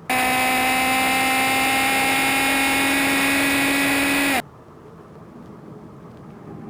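Land-speed-record motorcycle engine running flat out at a steady high pitch. It cuts in suddenly and cuts off about four seconds later, its pitch sagging slightly just before the end.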